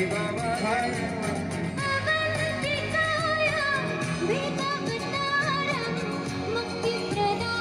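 Live band performing a devotional song: several voices singing together into microphones over acoustic and electric guitar.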